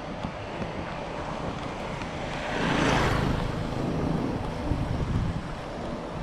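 Wind buffeting a GoPro Hero 7's microphone while running, a steady noisy rumble. About halfway through, a louder whoosh swells and fades.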